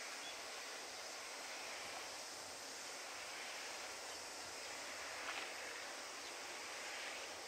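Faint, steady outdoor background hiss with no distinct source, and a couple of faint ticks about five seconds in.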